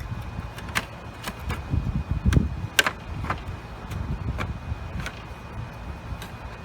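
Hard plastic parts of an upright vacuum being handled and fitted together: a string of sharp clicks and knocks, the loudest a little under three seconds in, over a low rumble of handling.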